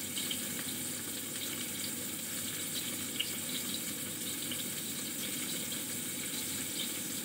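Pointed gourd pieces frying in oil in a steel pan over high heat: a steady sizzle with a few faint pops.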